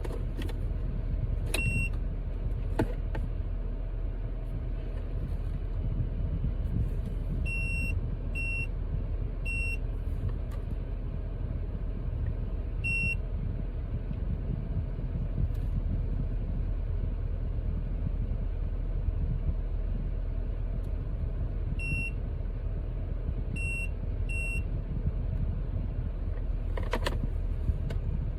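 Steady low rumble of a car interior, with short high electronic beeps scattered through it, single or in quick runs of two or three, and a few sharp clicks.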